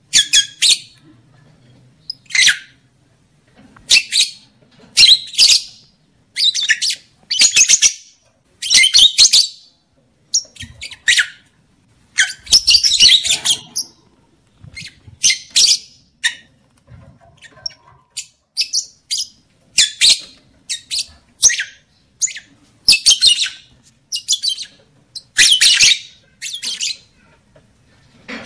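Lovebird calling: a long series of shrill, rapid chattering bursts, one every second or so, some short and a few lasting about a second. These are the calls kept as a lure to stir lovebirds into breeding condition.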